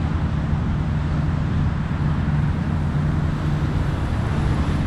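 Steady road traffic noise from cars and trucks passing, mostly a low, even noise with no distinct events.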